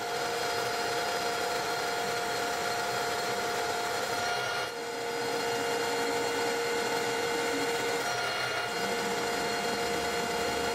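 Metal lathe running with a lathe tool turning down a steel bar: a steady machine whine over a hiss of cutting. The whine shifts a little about halfway through. The run is played at three times speed.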